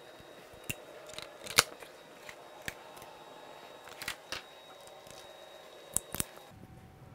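Metal hand tools handled on a workbench: a scattered series of sharp clicks and knocks, the loudest about one and a half seconds in, and a close pair near the end, over a faint steady hum.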